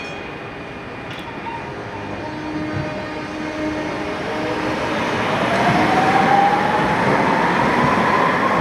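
Tatra T6A5 tram pulling away and passing close: its electric traction motors whine, the tone climbing steadily in pitch from about four seconds in as the tram gathers speed, over wheel and track noise that grows louder as it goes by.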